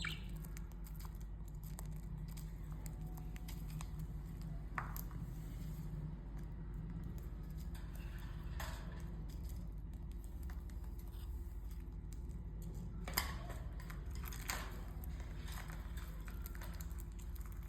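Budgies pecking at seed on a food plate: a few scattered small clicks and taps over a steady low hum.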